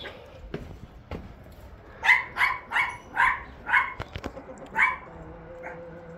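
A dog barking, a run of about six short, loud barks in quick succession, the last after a brief pause.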